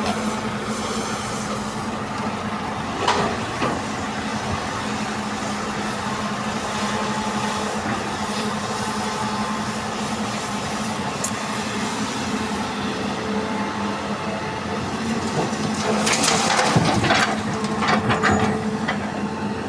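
A Hitachi EX200 excavator's diesel engine is running steadily while it loads soil into a dump truck. There is a brief louder clatter about three seconds in and a longer stretch of clattering near the end.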